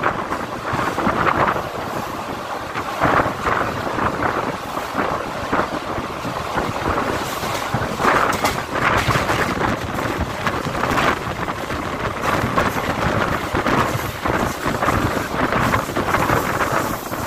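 Mumbai local electric train running along the track, heard from its open doorway: a steady rush of wheel and rail noise mixed with wind buffeting the microphone in irregular gusts.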